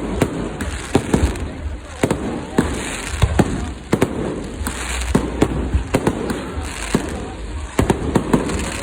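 Fireworks display going off close by: a rapid, irregular series of sharp bangs, several a second, over a continuous low rumble of launches and bursts.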